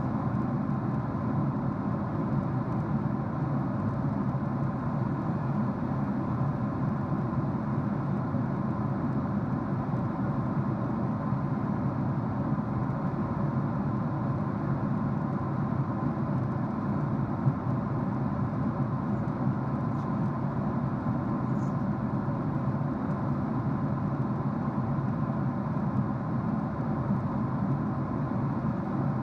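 Jet airliner cabin noise at cruise: a steady low drone of engines and rushing air, with a faint steady hum above it.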